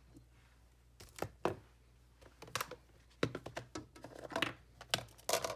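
Stamparatus stamping platform and cardstock being handled: irregular light clicks and taps, several in quick succession near the end.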